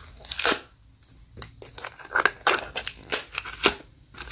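Small paperboard blind box being torn open by hand, with short scattered tearing and rustling sounds of the flap being pulled up. The loudest comes about half a second in.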